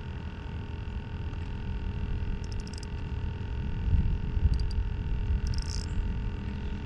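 Wind rumbling on the microphone, with a few short bursts of faint high clicking in the middle.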